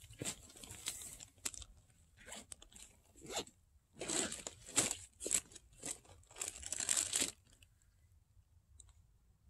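A run of short, rough rustling and crunching noises, stopping about seven seconds in.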